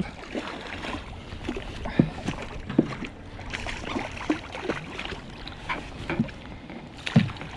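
Water sloshing and lapping against a small boat, with scattered short knocks and splashes, the sharpest near the end.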